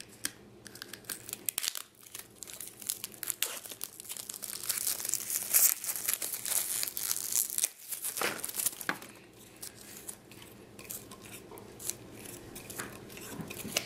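Plastic toy packaging being cut and torn open, with crinkling and crackling, busiest around the middle.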